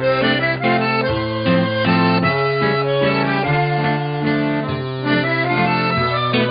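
Instrumental background music, with long held melody notes over a bass line that changes about once a second.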